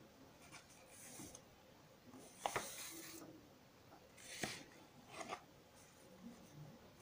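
Sheets of paper being handled and swapped by hand: a few short, faint rustles, the loudest about two and a half seconds in and again about four and a half seconds in.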